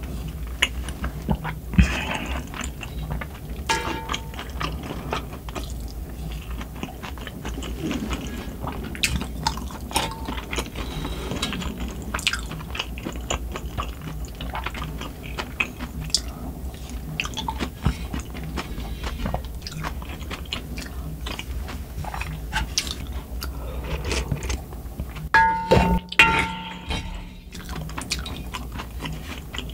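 Close-miked eating: a wooden spoon clinking and scraping against a black pan of spicy sundae gukbap broth, with chewing and mouth sounds between the spoonfuls, and a few louder knocks near the end. Underneath runs a steady low hum from wind and rain.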